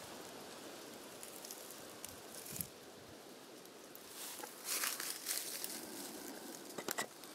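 Faint steady outdoor background with crunching, rustling footsteps on dry leaves and twigs, mostly about two thirds of the way in, and a few sharp clicks near the end.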